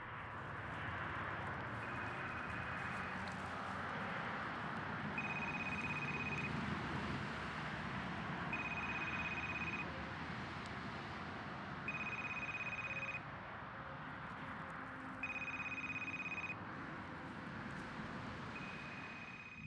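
A repeating electronic tone like a telephone ringing: a high beep about a second long, sounding six times at even intervals of about three and a half seconds, over a steady noise.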